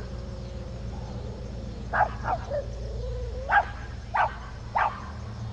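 A dog barking, about six short barks from about two seconds in, with a faint whine between them, over a steady low rumble.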